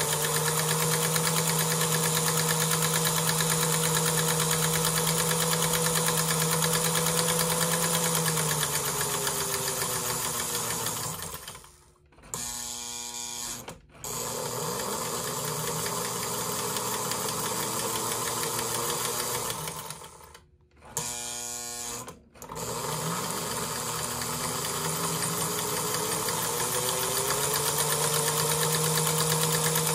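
Lionel 773 Hudson locomotive's electric motor and gearing running with the wheels turning free, a steady mechanical whirr. Twice, about twelve and twenty seconds in, the power drops out and the reversing unit cycles: a short hum between two brief gaps, then the motor winds back up to speed.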